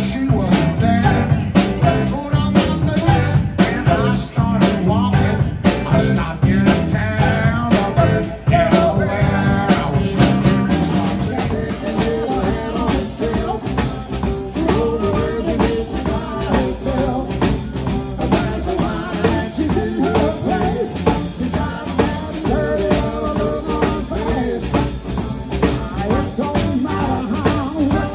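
Blues band playing live: electric guitar, electric bass and drum kit in a steady groove. The music changes abruptly about eleven seconds in.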